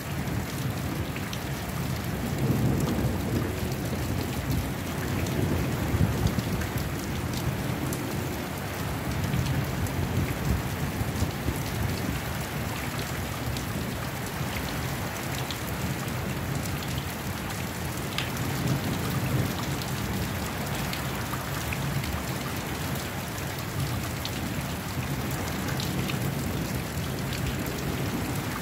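Steady rain falling on a thunderstorm night, with scattered drops ticking close by. Low thunder rumbles swell a few seconds in and again past the middle.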